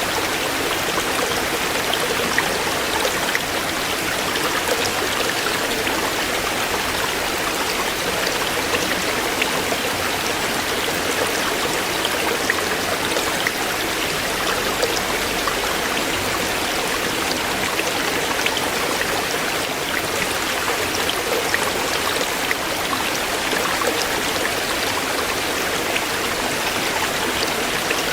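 A shallow stream flowing over stones, a steady rush of water with many small splashes and gurgles.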